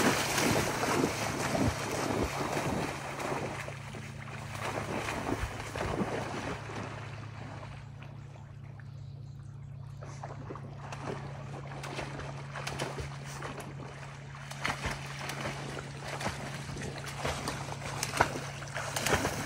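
A retriever splashing through shallow flooded-swamp water on a duck retrieve. The splashing fades as she heads out, is faint for a few seconds about halfway through, then grows louder again as she comes back with the bird.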